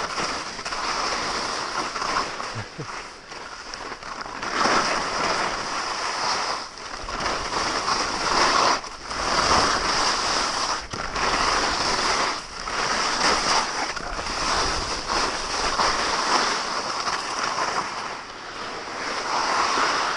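Skis scraping and hissing over firm snow on a downhill run, mixed with wind rushing over the camera microphone; the noise swells and eases every second or two.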